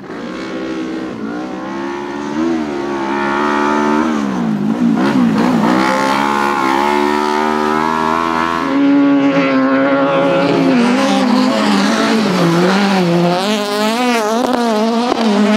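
Autocross race car engines revving hard on a loose dirt track, their pitch climbing and dropping with throttle and gear changes. The engine sound changes to a different car about nine seconds in, with quick wavering pitch near the end.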